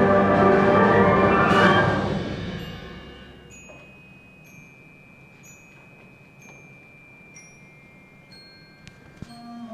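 A brass band holds a loud chord that stops about two seconds in and rings away in the hall. Then comes a quiet stretch with a few faint, short, high-pitched chime-like pings and a thin ringing tone.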